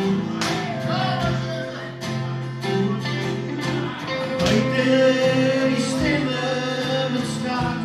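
Live music from a duo: an acoustic guitar and an electric guitar playing a song together, with a man singing over them at times.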